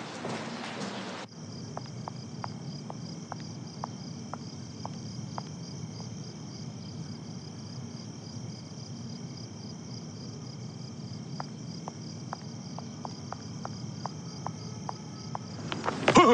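Crickets chirring steadily in a night ambience: a high, finely pulsing trill over a low hum, with a few faint ticks scattered through it. It cuts in about a second in, after a moment of room noise.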